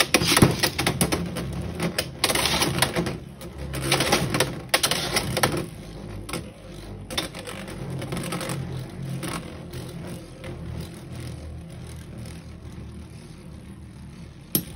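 Two Beyblade X spinning tops, Hasbro Chain Incendio and Takara Tomy Hells Chain, spinning and colliding in a plastic Beyblade X stadium: rapid clattering hits for about the first six seconds, then a quieter steady spinning noise with occasional knocks as they circle.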